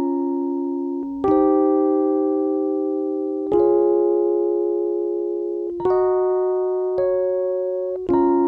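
Background music: slow keyboard chords, a new chord struck about every two seconds and left to ring and fade.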